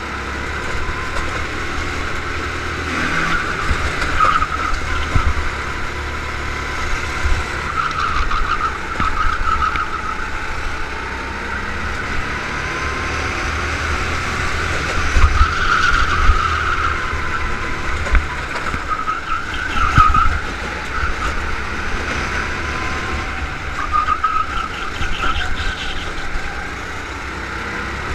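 Go-kart engine heard from onboard, its note rising along the straights and dropping into the corners, over and over through a lap, with low rumble and a few thuds around the middle.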